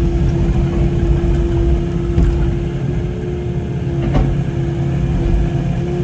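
An engine running steadily at constant speed, with a brief sharp crack about four seconds in.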